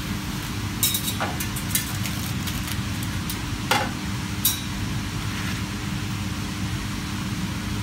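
Hot oil sizzling steadily in a pan for deep-frying pappadoms, over a steady low hum. In the first half, metal spatulas give a few sharp clinks against the pan and the stack.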